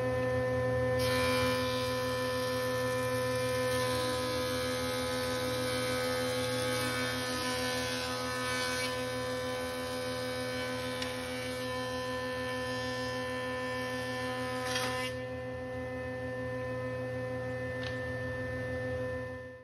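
JET thickness planer running with a steady hum, planing a wooden floorboard down to 7/16 inch. The rougher cutting noise starts about a second in and ends near 15 seconds, when the board clears the cutterhead and the motor is left running free.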